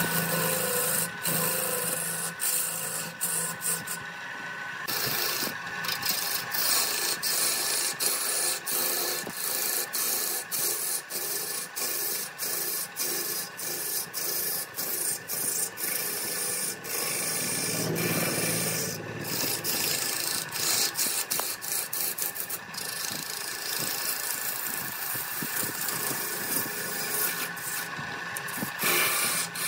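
A gouge cutting into a large wooden blank spinning on a wood lathe: a continuous rough shaving and scraping noise, broken by many brief gaps as the tool eases off, over a steady hum.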